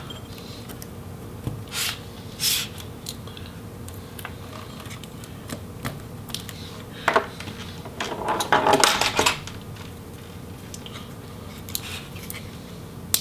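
Hand-tool handling noises on a laptop palm rest: a few light clicks and taps as a screwdriver and pry tool work over the keyboard backlight cover. About eight seconds in comes a longer rustling scrape of the plastic sheet.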